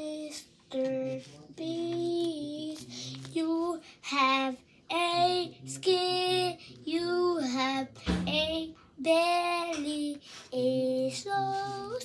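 A child singing a tune in a string of held notes, some sliding up or down, with short breaks between phrases.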